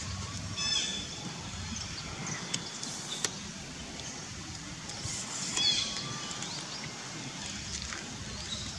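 Outdoor ambience: a steady low rumble, with a short high chirp about a second in and another just past halfway.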